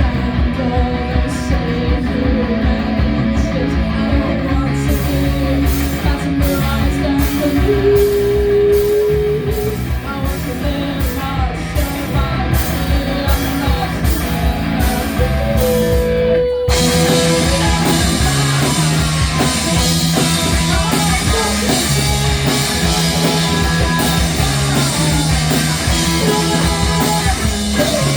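Live rock band playing: a guitar riff with bass, drums and singing. About seventeen seconds in, the band breaks off for an instant and comes back fuller and louder.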